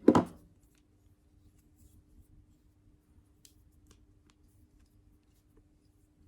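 Spring-loaded tool of a Victorinox multitool worked by hand: one sharp metallic snap right at the start, then a few faint clicks.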